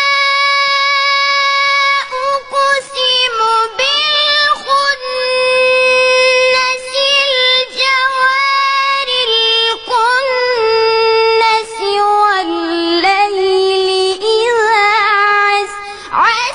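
A young child's voice chanting Quran recitation in melodic tajweed style: a long held note for the first two seconds, then ornamented, wavering phrases whose pitch sinks lower through the middle and climbs again near the end.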